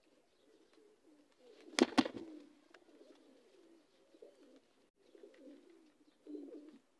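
Domestic pigeons cooing, a low continuous wavering murmur, with two sharp knocks close together about two seconds in.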